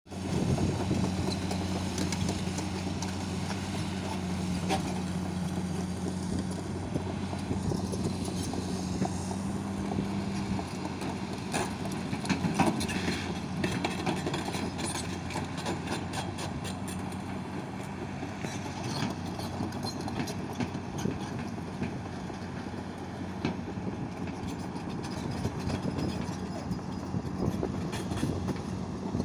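XCMG 250LC hydraulic excavator running, its diesel engine humming steadily under irregular metallic clanks and knocks. The engine's steady tone drops away about ten seconds in.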